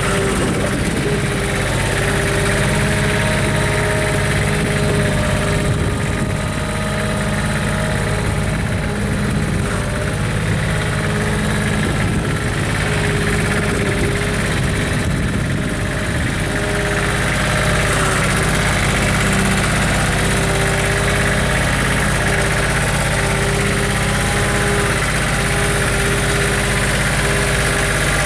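Engine of a 4x4 loader-backhoe tractor running steadily at idle.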